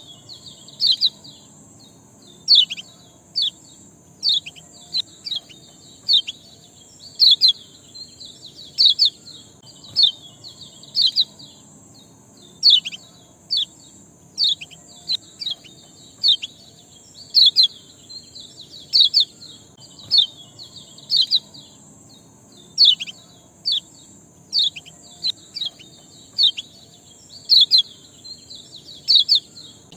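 Small bird giving repeated sharp chirps, each falling quickly in pitch, about one a second and now and then in quick pairs, over a steady high hiss. It is a bird-call lure track ('pancingan') used to prompt a reluctant caged bird to sing.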